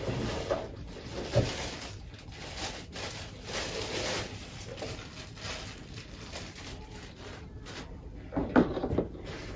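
Cardboard and plastic packaging rustling as a mixer is unpacked by hand, with a knock about a second in and a louder knock near the end as the mixer is set down on the box.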